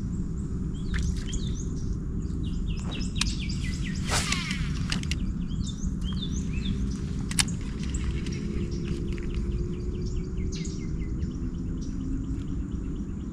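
Several wild birds chirping and singing with many short, quick notes over a steady low rumble, with a few sharp clicks about three, four and seven seconds in.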